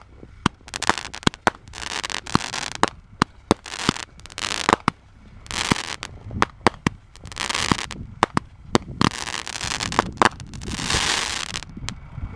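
Consumer aerial fireworks going off: a rapid string of sharp bangs, several a second at times, mixed with stretches of hissing crackle from the bursting stars.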